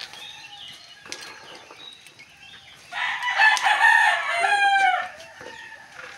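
A rooster crowing once, a call of about two seconds starting about three seconds in, its pitch falling at the end.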